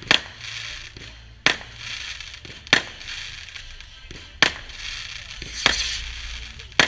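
Fireworks going off: six sharp bangs about a second and a half apart, with a crackling hiss between them.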